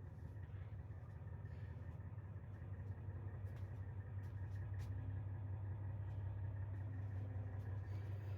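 Bus engine idling: a steady low hum that grows a little louder about three seconds in, with a few faint clicks over it.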